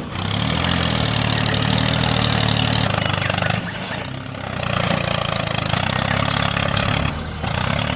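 A small engine running steadily, easing off briefly about halfway through and again near the end.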